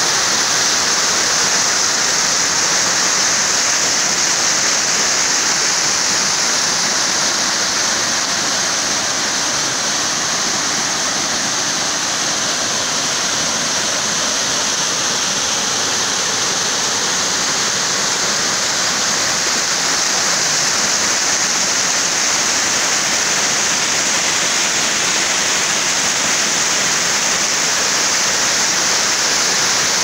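Small waterfall pouring over rock, heard close up: a loud, steady rush of falling water.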